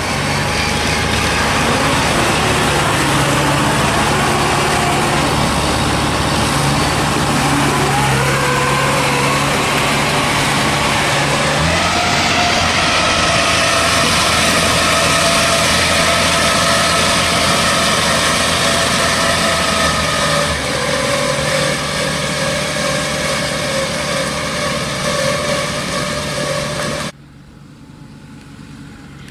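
Engine of a farmer-built straw-gathering machine, converted from an old combine harvester, running steadily as the machine travels. Its note shifts about a third of the way in and again past the middle, and near the end the sound drops away suddenly.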